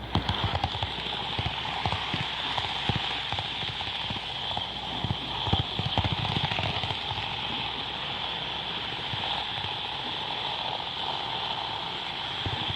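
N scale model Shinkansen running on its track, with a steady whine from the motor and gears and many irregular clicks and knocks from the wheels passing over rail joints.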